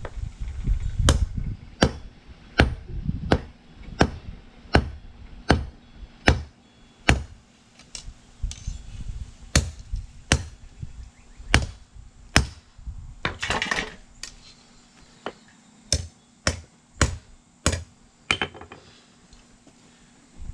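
Hand hammer striking a hot steel hay-rake tine on an anvil in a steady rhythm, about one blow every half to three-quarters of a second, to straighten the forged loop so it lies parallel with the shank. About two-thirds through, the blows pause for a brief rasping scrape.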